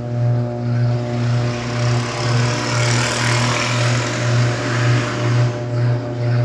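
Electrolux LTD13 13 kg washing machine running its second rinse: a steady low motor hum pulsing about twice a second, with water churning that swells in the middle.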